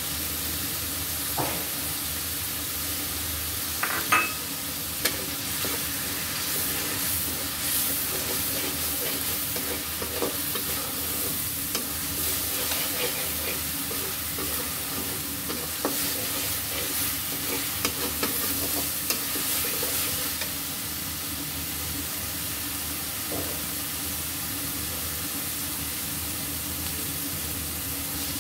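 Ground spices and ginger-garlic paste sizzling in hot oil in a karahi, while a metal spatula stirs and scrapes the pan with occasional clinks. The loudest clink comes about four seconds in.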